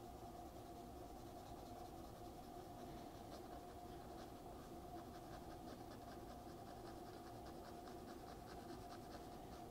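Faint graphite pencil strokes on drawing paper: a run of quick, short shading scratches, denser from about three seconds in, over a faint steady hum.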